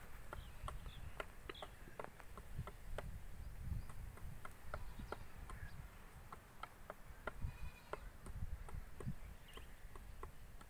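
Faint outdoor ambience: wind rumbling on the microphone, with many short, scattered ticks and chirps and a brief faint high call about seven and a half seconds in.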